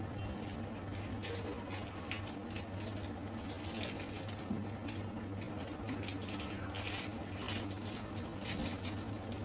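Felt-tip sketch pen making quick short strokes and dots on paper: an irregular run of small scratchy ticks, over a steady low hum.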